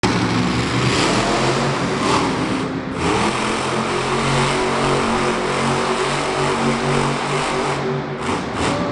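Monster truck engine running at high revs as the truck spins a donut, a loud steady drone that dips briefly just before three seconds in.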